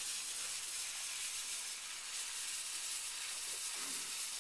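Burning fireworks wick with a steady, high hiss, its sparks spitting as it creeps toward the fireworks it is lighting.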